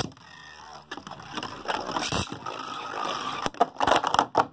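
Two 3D-printed Beyblades launched into a plastic stadium, whirring and scraping as they spin across the floor. They clash in a quick run of sharp hits near the end.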